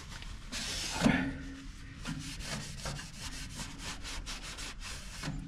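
Cloth shop rag rubbing and wiping over the freshly fitted spin-on oil filter and its metal mount on a diesel generator. It is a quick run of short scuffing strokes, with a louder scuff about a second in.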